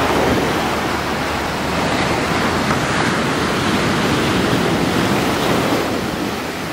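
Ocean surf breaking and washing up the sand: a steady rush of water that swells right at the start and eases off near the end.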